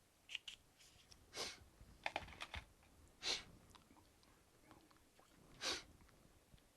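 Small clicks and three short scrapes of a laptop's parts and screws being handled during reassembly.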